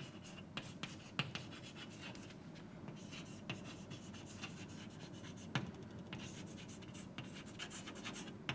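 Chalk writing on a blackboard: faint scratching strokes with many sharp little taps where the chalk meets the board.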